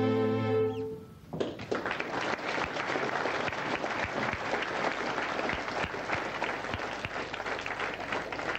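The orchestra's closing held chord ends about a second in, and then an audience claps.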